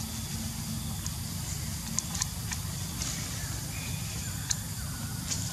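Dry leaf litter and twigs crackling in short clicks, a few seconds apart, as long-tailed macaques forage on the forest floor, over a steady low rumble.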